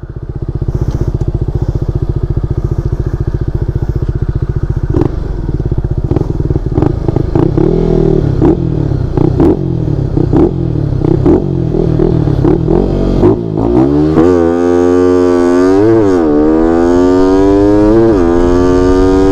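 Honda Winner 150 motorcycle with its single-cylinder engine bored out to 62 mm on a stock cam, running under way with a dense, pulsing rumble. From about 14 seconds in it rises steadily in pitch as it accelerates hard, with a few brief wobbles in the rise.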